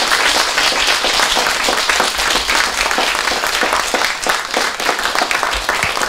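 A small seated audience applauding, many hands clapping in a steady, dense patter.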